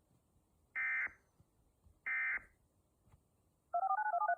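Emergency Alert System end-of-message (EOM) data bursts: two short, identical buzzy digital bursts about a second apart, the last of the three that close an alert. Near the end comes a quick run of short beeps that jump rapidly between pitches.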